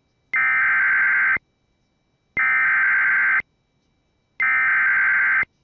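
Emergency Alert System SAME header: three identical bursts of digital data tones, each about a second long with a second's pause between them. It is the coded start of a new alert message, here a National Weather Service severe thunderstorm warning.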